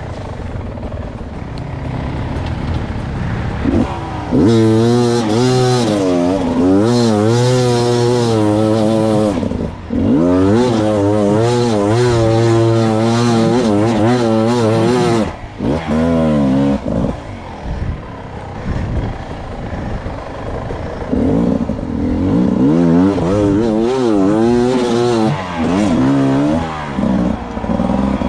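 Beta 300 two-stroke enduro motorcycle revving hard, its pitch swinging up and down over and over with the throttle, easing to a low, quieter running for a few seconds past the middle before revving again.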